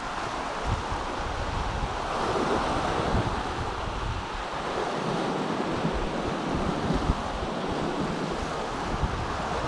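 Ocean surf washing and breaking around coastal rocks, with gusty wind buffeting the microphone; the wash swells louder about two seconds in.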